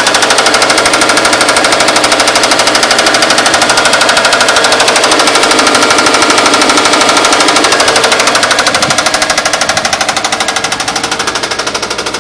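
2004 Subaru Impreza WRX's 2.0-litre turbocharged flat-four engine running with a loud, rapid rod knock, the sign of a worn connecting-rod bearing; it sounds nasty. The knocking eases a little in loudness near the end.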